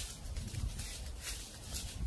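Footsteps crunching through dry fallen leaves, a crunch roughly every half second, over a low rumble.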